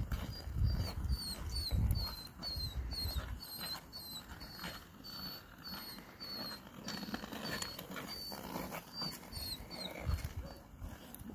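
Beagle whining in a rapid string of short, high cries, about three a second.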